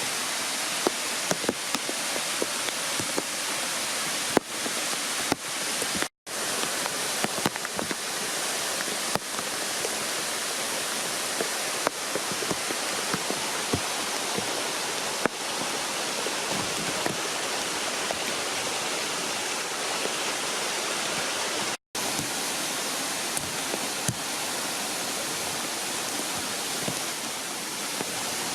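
Waterfall: a steady rush of falling water with small splashing ticks, cutting out to silence for an instant twice.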